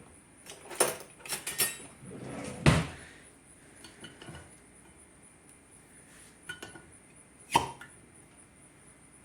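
Two glass jars of home-canned chicken broth having their sealed lids popped open: two sharp pops about five seconds apart, among lighter clinks and knocks of glass and metal lids.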